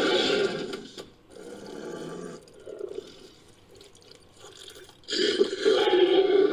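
Dinosaur-style creature roar sound effect, made from layered monster and dinosaur recordings. A roar fades out in the first second, quieter rough growling follows, and a new loud roar starts suddenly about five seconds in.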